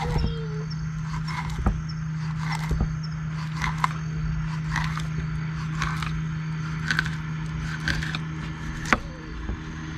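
Knife cutting through a small cará fish, slicing it thin, with a sharp cut or scrape about once a second; the loudest is near the end. A steady low hum runs underneath.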